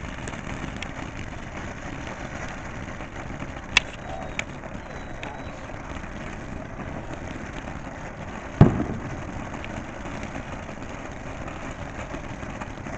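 Ground fountain firework spraying sparks with a steady rushing noise. There are a couple of sharp cracks about four seconds in and one loud firework bang about two-thirds of the way through.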